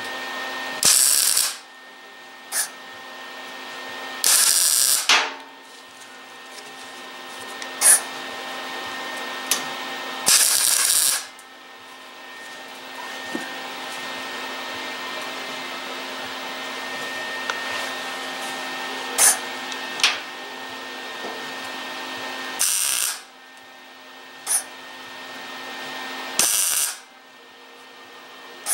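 MIG welder laying short stitch welds along the seam of a steel fender patch panel: about ten bursts of arc crackle, each a quarter of a second to a second long, with a steady hum between them. The welding goes slowly, in short bursts, so as not to warp the panel.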